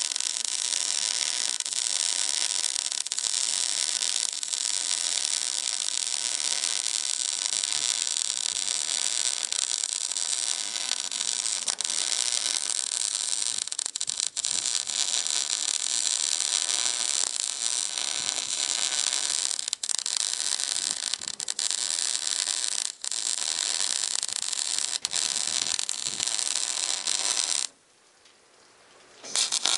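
Electric arc welding on steel: the arc runs with a steady crackling hiss. It breaks off for a moment a couple of times, then stops for about a second and a half near the end before the arc is struck again.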